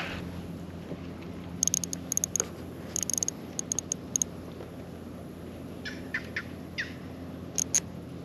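Birds calling: clusters of short, sharp high chirps, then a few quick downward-sliding notes, over a steady low hum.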